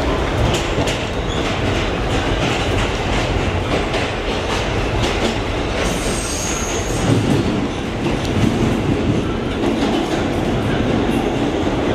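Kawasaki R211T subway car running between stations, heard from inside the car: a steady rumble of wheels and running gear with repeated clicks over the rail joints. About six seconds in there is a brief high-pitched squeal.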